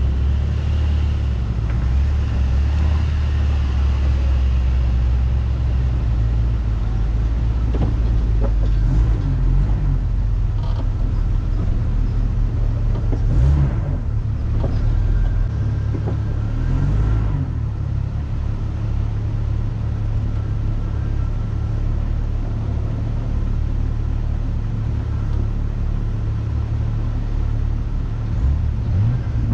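Off-road vehicle's engine running steadily at low revs while it crawls a rough trail, a deep drone, with a few knocks about a third and a half of the way through.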